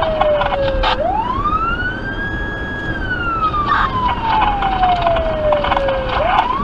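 Federal Signal Touchmaster Delta electronic siren sounding a wail, heard from inside the car: the tone bottoms out about a second in, climbs quickly to a high pitch, holds briefly, then slides slowly back down and starts climbing again near the end. Steady road rumble runs underneath.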